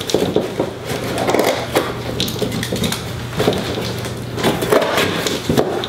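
Scissors cutting through packing tape on a cardboard box, the cardboard scraping and crackling in irregular strokes.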